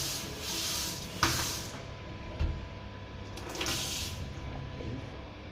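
Water from a kitchen sink mixer tap running in short spurts as the tap is opened and closed to test it, with a sharp knock about a second in and a dull thump midway.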